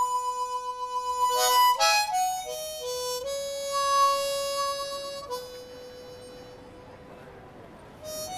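Background music: a slow solo melody on a wind instrument, one long held note after another. About two-thirds of the way through, a note fades away, and a new note begins near the end.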